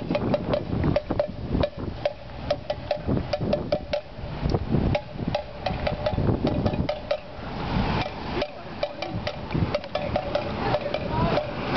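Handheld protest noisemakers being struck in a rapid, irregular clatter of sharp knocks, several a second, many carrying the same short metallic ring.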